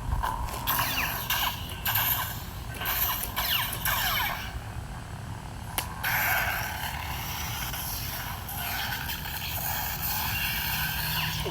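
Xeno Pixel V3 lightsaber's speaker playing the Shin Hati sound font: a steady electric hum with sweeping swing sounds over the first few seconds, then a steadier hum.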